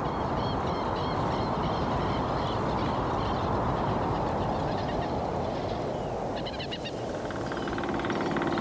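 Birds calling over a steady rushing background, in a reed-fringed coastal lagoon. A steady low hum joins about seven seconds in.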